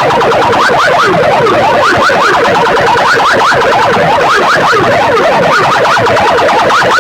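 Loud electronic siren-like wails blasting from competition DJ sound systems: many fast rising and falling sweeps overlapping one another, several a second, with no steady beat.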